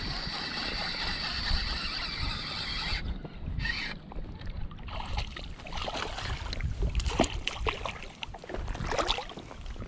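Water hissing and lapping close to the microphone, then from about five seconds in, repeated splashing as a hooked speckled trout thrashes at the surface.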